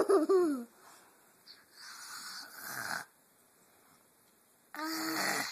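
A young child imitating snoring: a falling voiced sound at the start, a raspy breathy snore about two seconds in, and a short voiced snort-like noise near the end.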